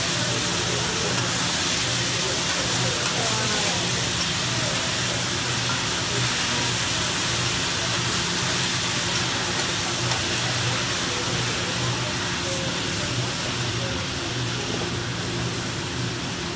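Vegetables sizzling and steaming on a hot hibachi teppanyaki griddle: a steady frying hiss.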